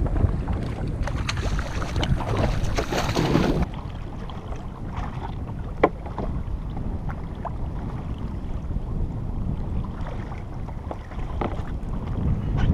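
Wind and sea noise on a small action-camera microphone aboard a kayak, with splashing as a kawakawa is hand-landed from the water. About four seconds in the noise drops suddenly, leaving quieter wind and water with scattered sharp knocks and taps.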